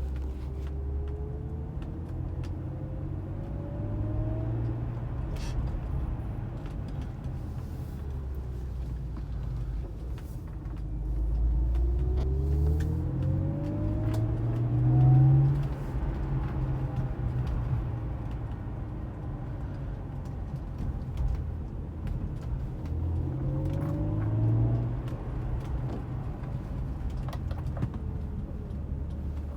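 BMW 125i accelerating: the engine note rises three times, each time with a whirring whine that climbs in pitch along with it. It is the whirring the owner hears when accelerating in first to third gear, not knowing whether it is normal.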